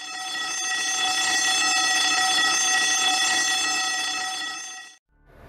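Air horn giving one long, steady blast of several pitches sounding together, swelling in over the first second and dying away after about five seconds.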